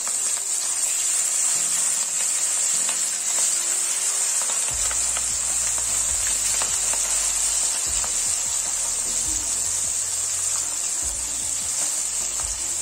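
Marinated hilsa fish pieces sizzling and crackling in hot oil in a kadai as more pieces are added, a steady hiss sprinkled with quick crackles.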